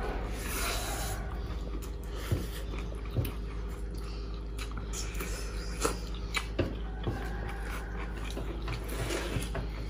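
Close-miked eating sounds: chewing and mouth smacks as rice and meat are eaten by hand, with scattered short sharp clicks from fingers and food against metal plates, over a steady low hum.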